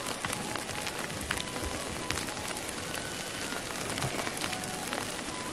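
Heavy wet snowfall striking tent fabric and rain gear: a steady hiss full of fine ticks.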